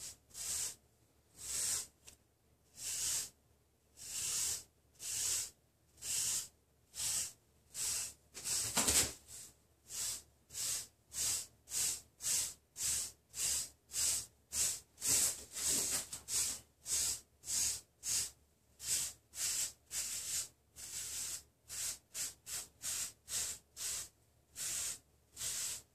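Bristle wave brush stroked through short hair to train 360 waves: a run of swishes, about one a second at first and quickening to nearly two a second near the end, with one longer, louder stroke about nine seconds in.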